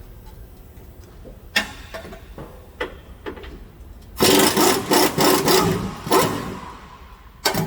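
A wrench being worked on the Silverado's upper rear shock-mount bolt to loosen it: a few separate clicks, then about two seconds of loud, rapid rasping from the tool in the middle, and a sharp knock near the end.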